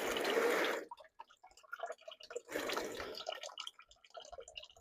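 Water-laden transmission fluid draining from a Honda Pioneer 1000's transmission into a drain pan, splashing in two surges with dripping between them; the water in the fluid means the transmission took on water.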